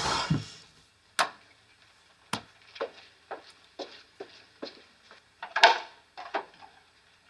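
Someone moving about a small room: two sharp wooden knocks, then a run of lighter taps about two a second, with a louder clatter of knocks partway through.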